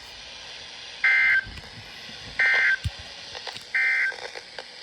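Weather radio's SAME digital end-of-message bursts: three short two-tone data chirps, a little over a second apart, signalling the end of the severe thunderstorm warning message.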